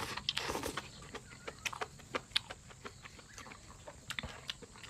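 Close-miked chewing and mouth noises of someone eating chicken, with many small irregular clicks and crackles.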